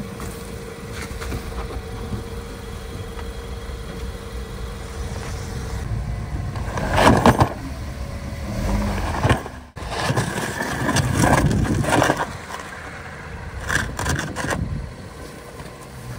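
A minivan's engine running while its rear tyre is driven against a small plastic Packout tool box on icy ground, with several loud crunching, scraping stretches in the middle as the tyre works against the box and the ice. The van does not manage to climb over the box: the suspension is too low.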